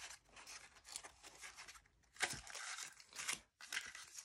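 Cardboard packaging of a Panini trading-card blister being torn open and its foil booster packets rustling, in a string of short bursts, loudest about two seconds in.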